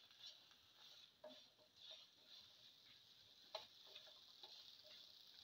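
Faint clicks and scrapes of a spatula stirring bottle gourd pieces and fried onions in a pan, a few light knocks about a second apart, the sharpest about three and a half seconds in.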